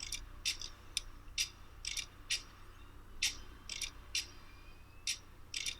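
A series of about a dozen sharp, high-pitched metallic clicks and clinks at irregular intervals, some with a brief ring after them.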